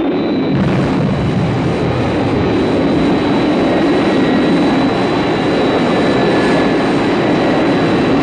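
Thunderbird 1's vertical-landing jet engine sound effect: a loud, steady rushing roar with a thin high whine, growing brighter and hissier about half a second in as the downward thrust jet fires.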